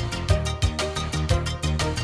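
Background music with a fast, steady beat and a moving bass line.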